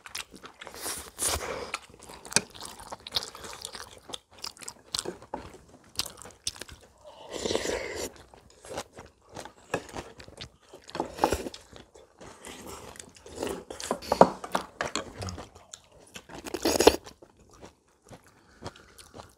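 Several people eating a home-cooked Korean meal: chewing and crunching food, with chopsticks and spoons clicking against bowls and plates.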